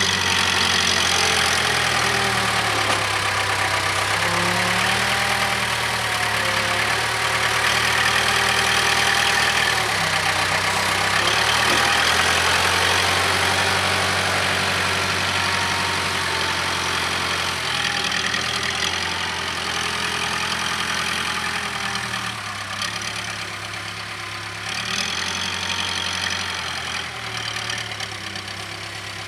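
Case 580K backhoe's diesel engine running steadily while the machine works, its pitch stepping up and down several times as the engine speed changes under load.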